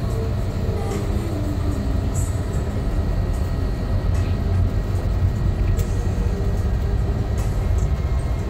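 Steady low rumble of a Scania K360 IB coach on the move: engine and road noise, with a few light clicks.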